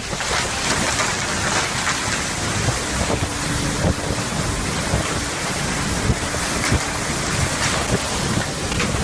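Strong storm wind blowing hard on the microphone over rough, surging sea water, a dense steady rush with rapid gusty swells.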